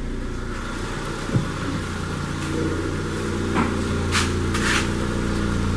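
Honda D17A2 1.7-litre 16-valve inline-four engine idling steadily and evenly, with a couple of brief rustles about four seconds in.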